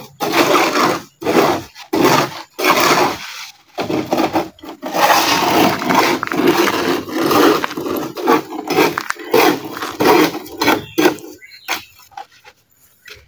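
Repeated gritty scraping strokes of a shovel working wet concrete mix, scooping it up to fill a steel culvert mould.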